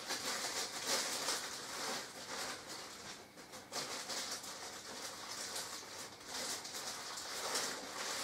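Irregular rustling and crinkling of something being handled, with many small clicks mixed in.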